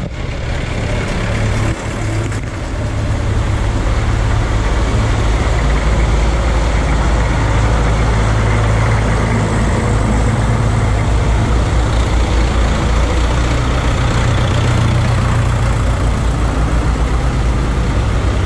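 Vintage tractor engines running at low speed as a succession of tractors drive through a shallow ford, with water splashing and swishing around their tyres. The engine sound is loud and steady, with a fast low chug.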